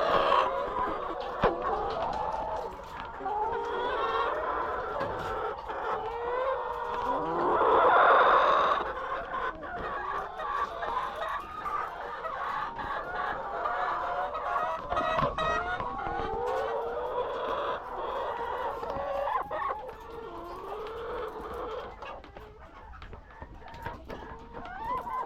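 A flock of laying hens clucking and calling over one another after feeding, the 'singing' sound of layers, with one louder, longer call about eight seconds in.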